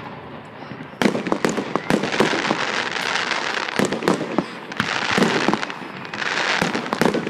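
Fireworks: a shell bursts with a sharp bang about a second in, followed by dense crackling, many small pops and bangs overlapping in waves, from glittering crackle stars.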